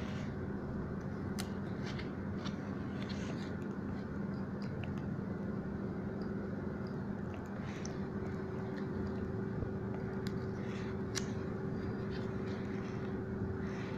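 Scattered light clicks and crackles of a small pry tool and fingers peeling tape pieces off a tablet's circuit board, over a steady background hum; a second, higher steady tone joins the hum about halfway through.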